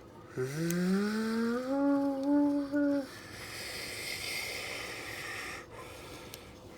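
A child voicing a jet engine starting up: a hum that rises in pitch for about two and a half seconds, then a steady breathy hiss for a couple of seconds.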